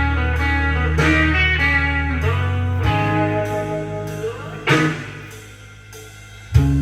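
Blues-style guitar playing an instrumental break between sung verses: plucked chords ringing over held bass notes, with a note sliding upward about two-thirds of the way in. The playing fades down, then a loud chord strikes near the end.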